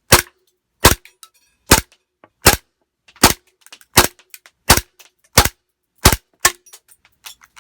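WE gas blowback Luger airsoft pistol firing about ten shots at a steady pace, one every three-quarters of a second or so, each a sharp pop with the clack of the toggle cycling. A few lighter clicks follow near the end.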